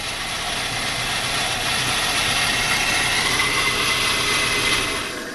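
Dodge Spirit's 2.5-litre four-cylinder engine running steadily, a little louder in the middle, then dying away at the very end as it is switched off.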